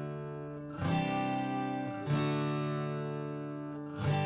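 Background music: strummed acoustic guitar chords, each one ringing on, with a new chord struck three times.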